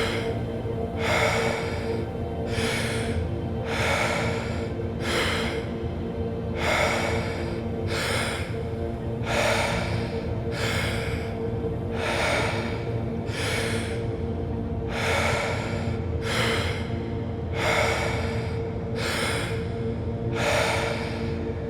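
Deep, rhythmic breathing, with an inhale and an exhale about every two and a half seconds: Wim Hof method power breaths set over a steady ambient music drone.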